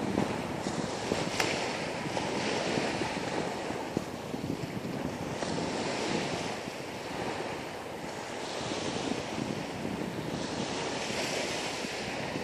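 Waves washing in, the rushing swelling and fading every few seconds, with wind rumbling on the microphone.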